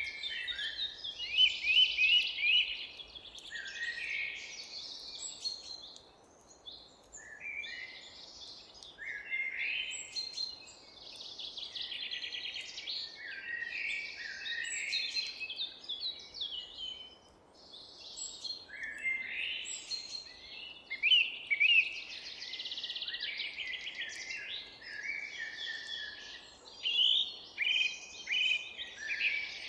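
Several forest songbirds singing at once, a dense chorus of chirps and rapid trills with two brief lulls, over a faint steady background hiss.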